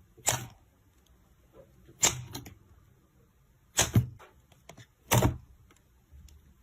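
Slime being pressed and worked by hand, giving four short, sharp pops, roughly one and a half to two seconds apart.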